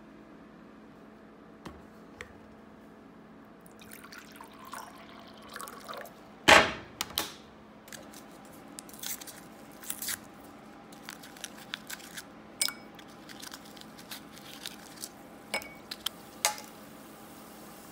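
A glass of water knocks down onto the counter once, loudly, about six and a half seconds in. Then a foil tablet packet is handled and torn open in many short, sharp crackles.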